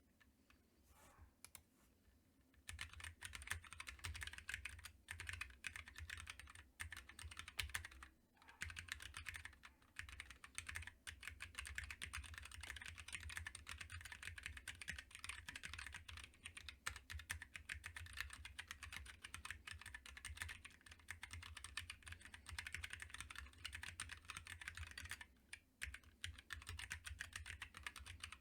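Typing on a Helix split mechanical keyboard fitted with Kailh Box Heavy Burnt Orange tactile switches and DSA keycaps in a 3D-printed PLA case. The typing is rapid and steady and begins about three seconds in, with brief pauses near eight seconds and twenty-five seconds.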